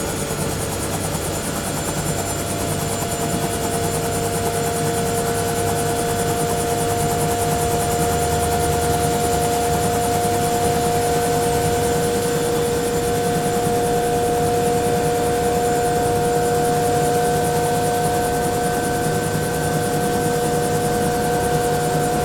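Bell 212 helicopter heard from inside the cabin, its twin turboshaft engines and rotor running steadily at idle after start-up. A continuous turbine whine made of two steady tones edges slightly higher in pitch, over a constant rumble.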